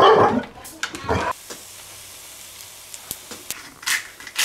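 A short spell of louder noise, then a steady hiss that lasts a little over two seconds.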